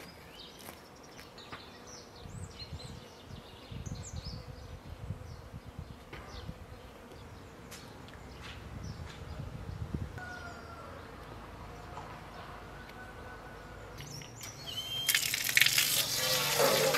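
Birds chirp now and then over a faint outdoor background. About fifteen seconds in, an outdoor standpipe tap is turned on and water gushes out loudly.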